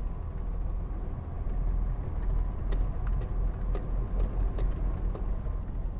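Inside a DAF truck's cab rolling over a road paved with tiles: a steady low rumble from the engine and tyres. From about two and a half to five seconds in there is a run of sharp rattles and clicks as the rough paving shakes the cab.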